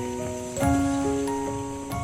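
Soft instrumental background music: slow, sustained notes layered into chords, with a new chord struck about half a second in.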